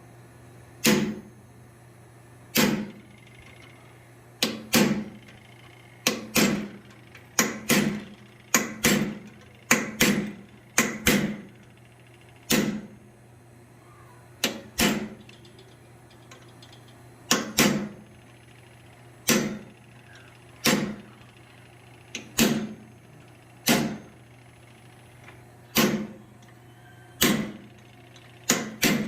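Hand hammer blows driving a punch or chisel into hot steel on an anvil, single ringing strikes every one to two seconds, some in quick pairs, as a dragon's mouth and nostrils are started at center-punched marks. A steady low hum runs underneath.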